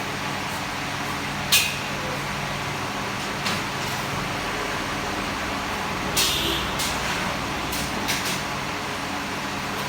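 A steady machine hum with several short, sharp hissing bursts: the loudest about a second and a half in, and a longer hiss around six seconds in.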